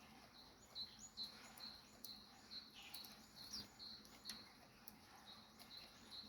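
Small birds chirping faintly: a run of short, high chirps repeating about two to three times a second, with a few sharp ticks mixed in.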